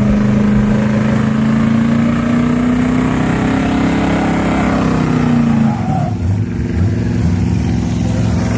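Pickup truck doing a burnout: the engine is held at high revs with the rear tyres spinning. Its pitch climbs a little, then drops and turns uneven about five and a half seconds in.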